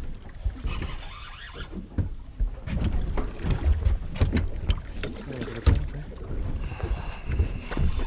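Wind buffeting the microphone on a small open boat: an uneven low rumble with scattered sharp clicks and knocks.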